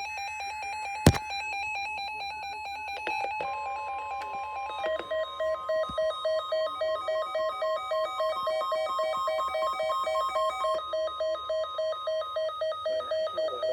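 Electronic emergency-alert tones. A rapid run of buzzy beeps is broken by a sharp click about a second in. From a few seconds in, a steady tone near 1 kHz sounds with a second, lower beep repeating about two or three times a second over it.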